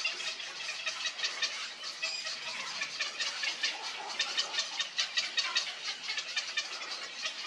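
Black-crowned night herons at their nests chattering in rapid, dense clicks, many per second, keeping on without a break.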